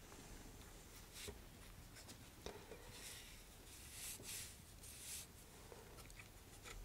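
Faint brushing strokes of a nitrile-gloved fingertip smoothing wet epoxy fin fillets along the joint between the fiberglass fins and body tube, a few soft swishes about a second apart.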